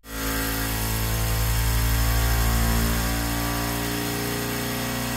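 Kingroon KLP1 3D printer's print head and stepper motors buzzing as the head is shaken back and forth very fast in Klipper's vibration-compensation (resonance) calibration test. A loud, steady hum of several tones starts abruptly.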